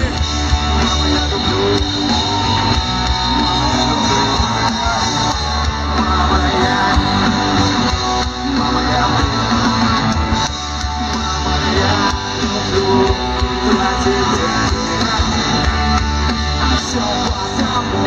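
Live rock music with guitar, played loud through the stage sound system.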